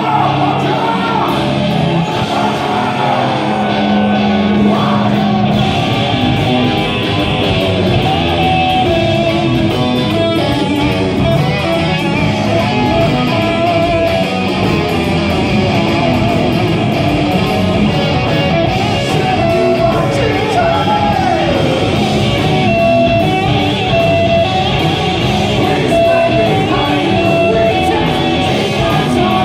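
Doom metal band playing live: distorted electric guitars, bass guitar and drums, with a singer's voice over them.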